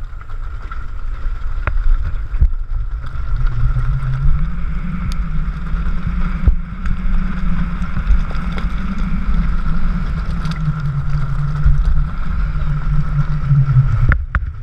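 Nissan Terrano SUV's engine running under load on a gravel track, its note rising about four seconds in and holding there, with a steady high whine alongside. Low wind buffeting on the microphone held outside the car, and a few sharp knocks.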